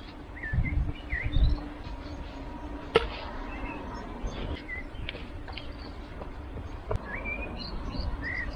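Small birds chirping: many short chirps that bend up and down in pitch, scattered throughout. A few low thumps come about a second in, and sharp clicks at the start and about three seconds in.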